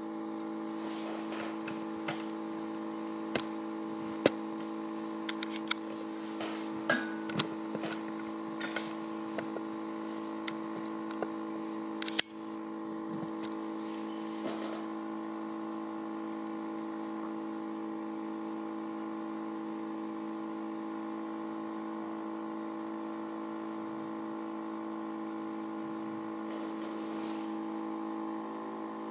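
Magnetic stirrer running with a steady hum of several tones while a piece spins on it, giving irregular sharp ticks and knocks for about the first twelve seconds. A louder knock comes about twelve seconds in, and after that only the even hum goes on.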